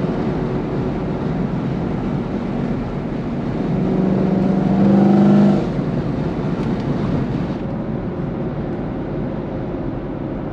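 Chevrolet Camaro SS 1LE's 6.2-litre LT1 V8 running through long-tube headers with the NPP exhaust valves open. It builds louder under throttle from about four seconds in, then falls back suddenly about halfway through, as if the throttle is released, and settles to a steadier, quieter drone.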